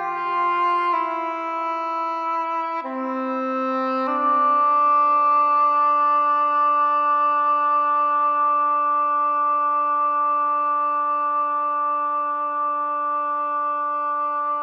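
Background music: slow, sustained chords that change three times in the first four seconds, then one long held chord.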